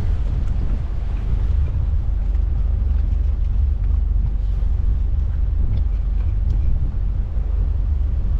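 Motor cruiser's engines running steadily at low speed, a constant low rumble.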